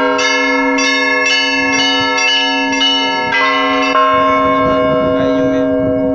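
Church bells ringing: small bells struck about twice a second over the steady low hum of a larger bell. The strikes thin out after about four seconds while the bells ring on.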